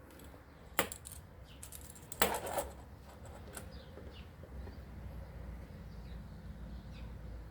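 A few sharp metallic clicks and clinks, one near the start and a quick cluster about two seconds in, as small metal tools or parts are handled and set down. Faint bird chirps follow.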